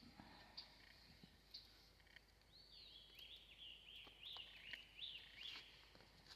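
Faint songbird song: a run of quick, high, arching notes for about three seconds in the middle, with short high chips about once a second.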